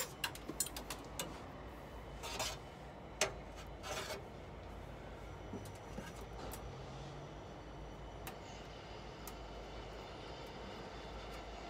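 Light handling noises from hands working a bonnet release cable through a Land Rover Defender's engine bay: a few sharp clicks and taps and two short rustling scrapes in the first four seconds. After that only a steady low background hum.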